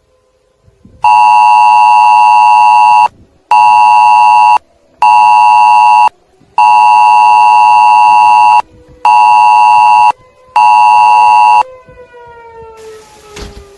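Wireless Emergency Alert attention tone, loud, sounding in its long-short-short cadence twice over: a two-second beep followed by two one-second beeps, then the same again. It signals an incoming emergency alert, here a tornado warning. A fainter siren tone rises and falls behind it, and rain noise comes up near the end.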